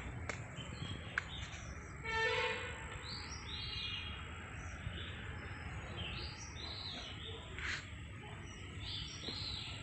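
Birds chirping and calling over a steady low outdoor background, with one louder call about two seconds in.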